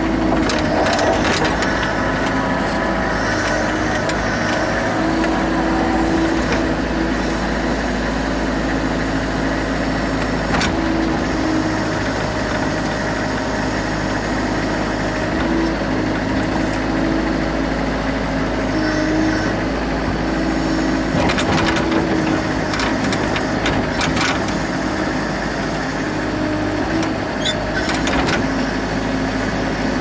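Mini excavator's diesel engine running steadily, heard from the cab, with a hydraulic whine that comes and goes as the arm and bucket dig and dump soil. There are a few brief knocks as the bucket works.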